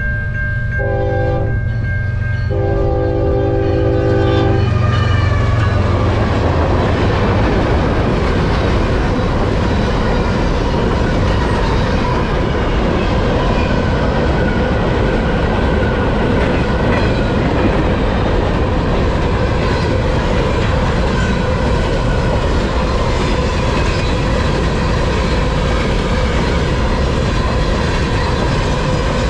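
Freight train locomotive horn sounding as the train reaches the crossing: the end of one blast, a short blast, then a longer blast ending about four seconds in, over the low rumble of the passing locomotive. After that, the train's covered hopper cars roll steadily past, their wheels clicking over the rail joints.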